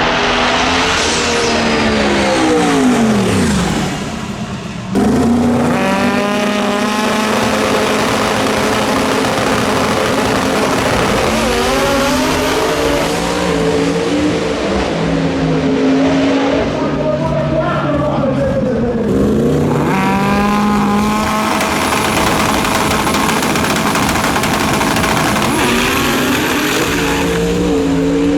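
Drag racing car engines at full throttle: the engine pitch climbs steeply as a car launches, twice, and a falling engine note early on dies away before a sudden cut.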